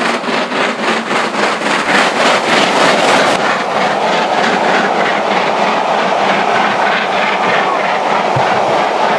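LMS Jubilee Class 45699 Galatea, a three-cylinder 4-6-0 steam locomotive, running fast with its exhaust beating rapidly and evenly as it passes under the bridge. About three and a half seconds in the beats stop, and the train's coaches roll past with a steady noise of wheels on rail.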